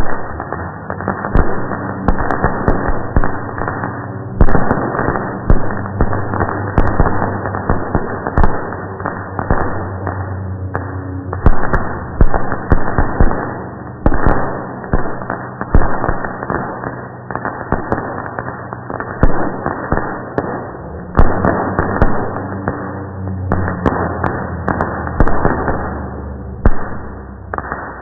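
Slowed-down recording of a fireworks display: a dense, continuous barrage of bangs and crackling, each blast trailing off in a drawn-out rumble.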